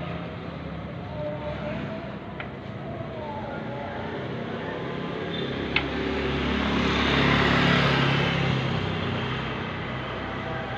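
A motor vehicle passing on the street, growing louder to a peak about seven and a half seconds in and then fading. A single sharp click sounds just before the peak.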